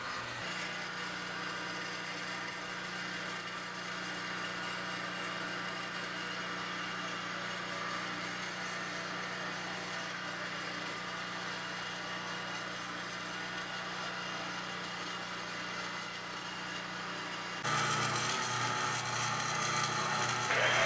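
A steady mechanical hum made of several steady tones, jumping abruptly to a louder, similar hum near the end.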